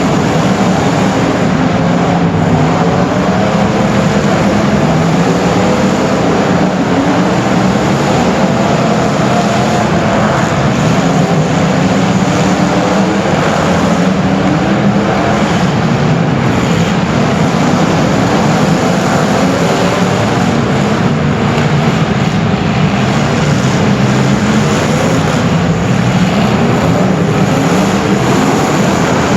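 Race car engine running hard without a break, its pitch rising and falling over and over as it revs up and backs off.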